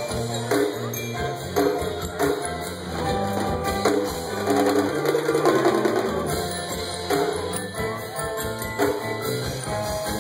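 A band playing live, with drums, keyboards and guitar.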